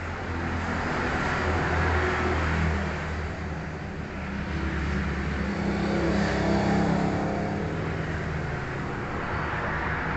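Electric hair clipper running with a steady low buzz as it cuts the hair around the side of the head and ear.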